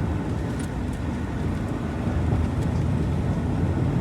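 Steady engine and road rumble heard from inside a truck's cab while driving at speed.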